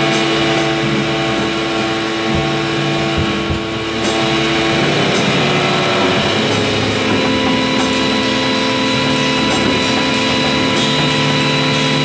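Distorted, noisy band music with held notes, the pitches changing to a new chord about five seconds in.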